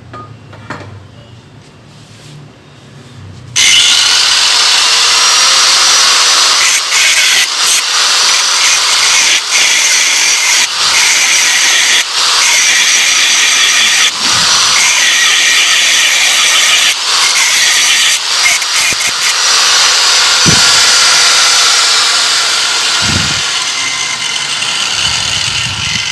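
Electric angle grinder starting about three and a half seconds in, then grinding and sanding a welded aluminium swingarm with a steady high whine, easing off briefly a few times. This is the weld build-up being smoothed down.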